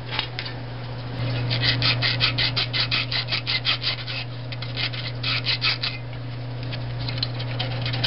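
Fine 400-grit sandpaper rubbing back and forth on the burner's flame igniter rods in quick rasping strokes, about six or seven a second, in several short runs. A steady low hum runs underneath.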